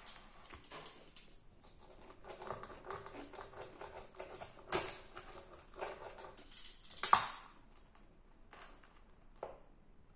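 Crunching and chewing on a crispy-crusted garlic naan pizza: a run of crackly bites and chews, with a sharper crunch about five seconds in and the loudest about seven seconds in.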